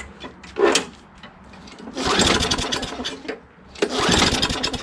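Tecumseh engine on a Craftsman push mower cranked by two hard pulls of its recoil starter rope. Each pull is a whirring rush of about a second that rises and falls in pitch, and the engine turns over without catching. The owner takes the failure to start for a bad magneto or no compression.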